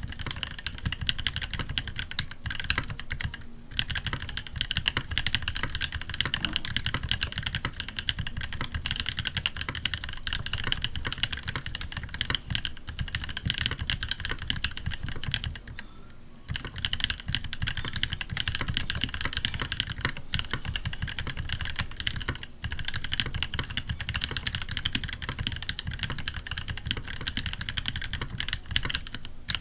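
Fast, continuous typing on a custom TX87SE mechanical keyboard with lubed NovelKeys Cream linear switches, a brass plate and GMK keycaps: dense, rapid keystroke clacks, with brief pauses about three and a half seconds in and again around sixteen seconds.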